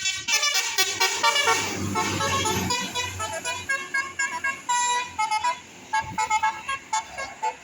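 Bus 'telolet' multi-tone air horn playing a quick tune of short pitched notes, loudest and densest in the first three seconds, then lighter repeated toots.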